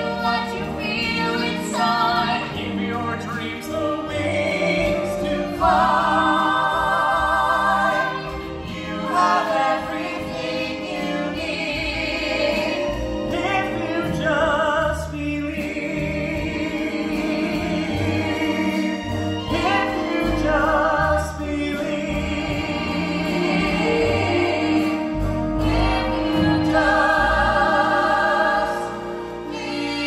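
Singers performing a slow song live on stage, holding long notes with vibrato over instrumental accompaniment, several voices singing together.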